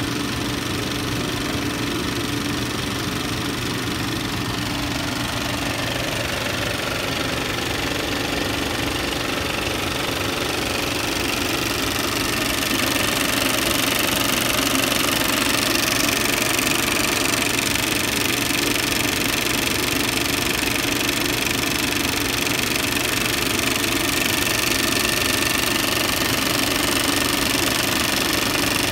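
A 70mm film projector running, its film mechanism making a rapid, steady clatter over a steady hum, growing a little louder about twelve seconds in.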